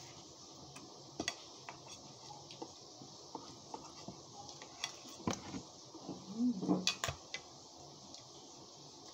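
A metal spoon clinking and scraping against a ceramic bowl while champorado is eaten: scattered light clicks, coming thicker about five to seven seconds in.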